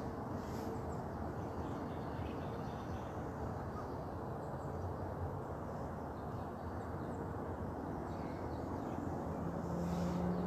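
Outdoor ambience: a steady low rushing noise with faint, scattered bird calls, and a low steady hum coming in near the end.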